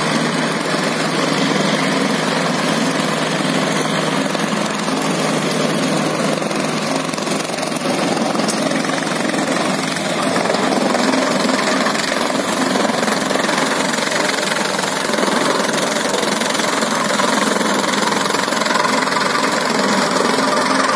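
Tractor engine running steadily under load while it drives a banana plant cutter, a shredder that chops the old banana stems and leaves. The engine and the shredding blend into one continuous machine noise.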